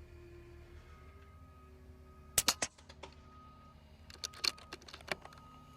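Two quick clusters of sharp mechanical clicks, about two seconds apart, from handling the Air Venturi Avenger air rifle's action.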